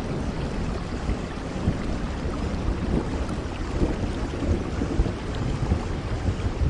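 Steady rain with a low rumble of thunder underneath, the rumble being the strongest part.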